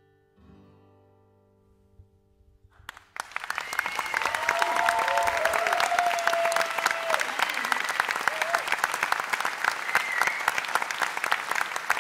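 The last notes of an acoustic guitar ring faintly and die away. About three seconds in, an audience breaks into loud applause, with a few cheers over the clapping.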